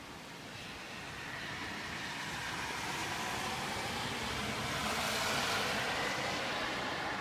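A car passing on the rain-wet road, its tyres hissing: the sound swells to a peak about five seconds in, then fades away.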